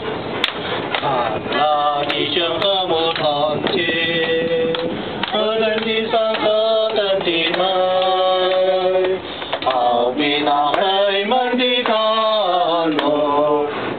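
A group of voices singing a Chinese Christian worship song together, in phrases with long held notes.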